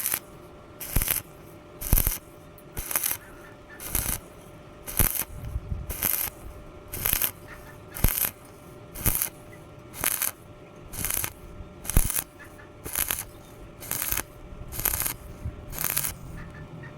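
Stick-welding arc from an E6013 electrode, struck in short crackling bursts about once a second and broken off between each. This is the spot-welding technique used on thin metal, laying one tack at a time so the sheet does not burn through.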